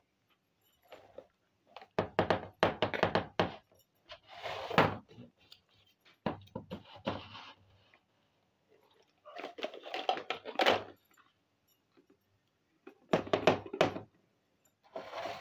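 Small plastic miniature toy kitchen pieces handled and set down on the floor: short runs of clicks and knocks, separated by pauses.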